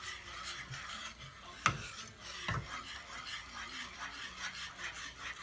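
Whisk stirring thick enchilada sauce in a saucepan, in repeated scraping strokes against the pan, with two sharper knocks a little under two seconds and about two and a half seconds in.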